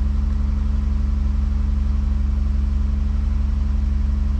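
Chrysler 3.6 Pentastar V6 engine idling steadily, freshly fitted with a new number-four fuel injector to cure a cylinder-4 misfire.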